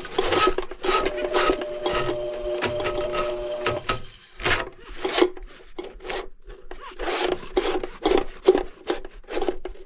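A steady mechanical hum with a regular tick about twice a second runs for the first four seconds, then stops. After that come repeated scraping strokes, two or three a second, as a pipe fitting on the washer drain is rubbed and scrubbed by hand.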